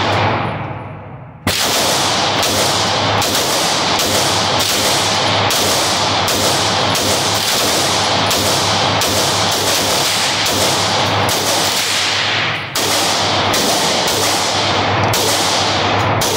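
Glock 17 9 mm pistol fitted with a compensator firing rapidly at about two shots a second, starting about a second and a half in, each shot echoing in an indoor range; there is a brief break about three-quarters of the way through.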